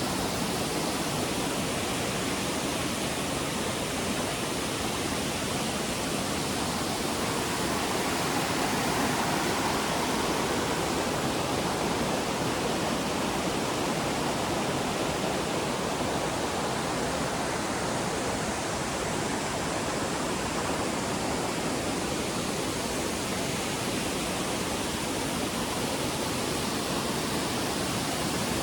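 Steady rush of a waterfall's cascading water, an even, unbroken noise.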